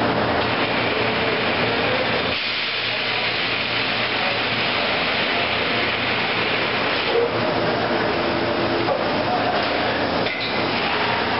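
Steady hiss and hum of a heavy-gauge vacuum thermoforming machine running, with faint whining tones over it.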